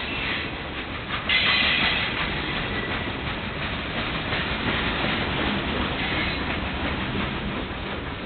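Freight train of boxcars and covered hoppers rolling past close by: steady rumble of steel wheels on rail with rapid clickety-clack at the rail joints. A brief, louder high-pitched screech comes about a second and a half in.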